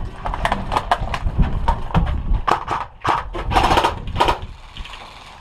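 Airsoft electric rifles firing short, rapid bursts of sharp clicks in irregular clusters, over low rumbling handling noise from the body-worn camera.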